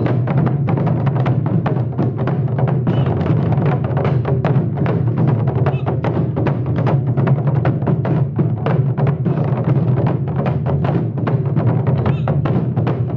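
Wadaiko ensemble: several shoulder-slung Japanese taiko drums struck with wooden sticks together in a fast, dense, steady rhythm.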